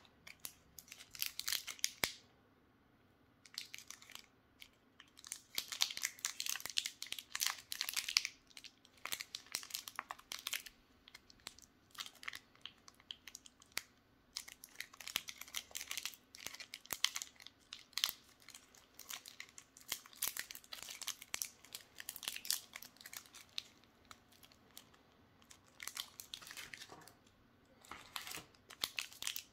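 Foil and paper wrappers of miniature Toblerone chocolates crinkling and tearing as they are unwrapped by hand, in irregular bursts of rustling with short pauses between them.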